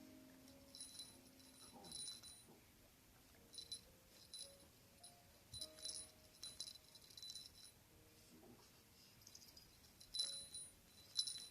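A small bell jingling faintly in short, irregular shakes, a dozen or so over the stretch, typical of a kitten playing with a bell toy or wearing a bell.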